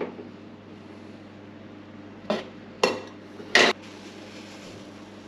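Metal kitchenware clinking on an espresso machine's steel grate: three sharp clinks about two, three and three and a half seconds in, as a stainless milk jug and a small mesh sieve are handled.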